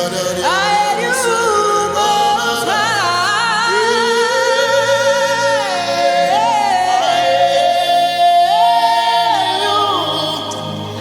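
Gospel worship music: a singer's wordless, melismatic vocal runs with vibrato and sliding notes over sustained instrumental chords.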